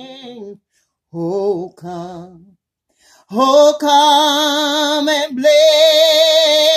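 A woman singing a hymn solo and unaccompanied, without words here, on long wavering notes: a held note fades out about half a second in, two short notes follow, then after a short pause a loud long note with vibrato, broken briefly near the end.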